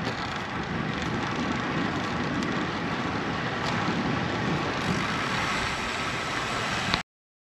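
Steady rush of wind over the microphone of a camera on a moving road bike, a constant noise with no voice in it, cutting off suddenly near the end.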